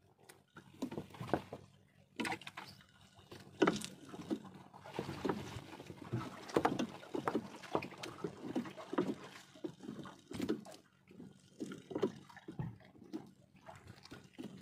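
A fishing net being hauled in by hand over the bow of a small wooden boat: irregular knocks and rustles of the wet net against the boat, with water sloshing. A faint steady low hum runs underneath.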